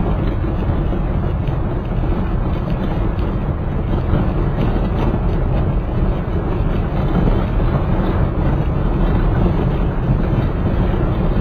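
Steady rumble of a vehicle on the road: engine and road noise with no change in pace.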